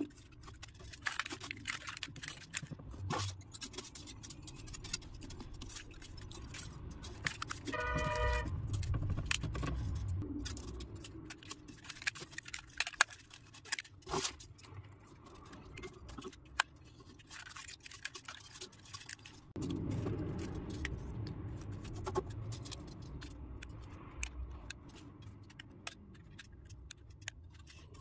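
Enamelled copper magnet wire rustling, clicking and scraping as coils are worked by hand into the slots of an electric motor stator, with many small ticks like jangling keys. A short horn toot sounds about eight seconds in, and a low rumble swells twice.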